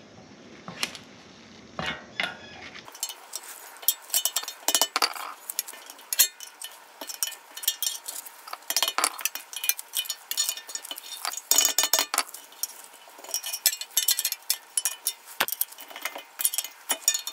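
Hand tools clinking and scraping against metal as a protective ring is pried out of a 2005 Lexus RX 330's wheel-bearing knuckle. A few light taps come first, then from about three seconds in a busy, irregular run of sharp metallic clicks and taps.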